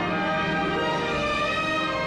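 Orchestral background music, holding long sustained chords.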